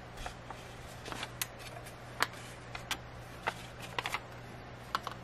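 Paper cut-outs handled and laid on a foil-covered plate: a scatter of short, light rustles and taps, about ten in all, over a steady low hum.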